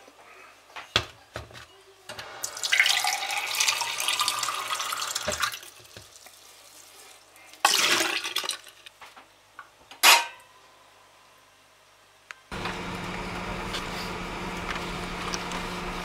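Water from a kitchen tap running into a glass at a stainless steel sink, its pitch rising as the glass fills, then a couple of short splashes as it is poured out. After a cut, a car engine runs with a steady low hum heard from inside the cabin.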